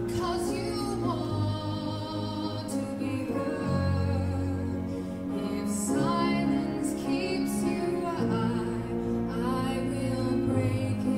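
A female soloist sings a slow song into a handheld microphone, holding long notes with vibrato over instrumental accompaniment with low, sustained bass notes.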